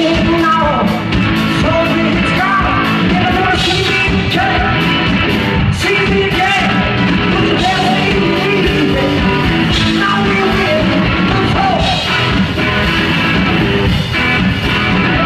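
Loud live rock music from a two-piece band: electric guitar and a drum kit playing.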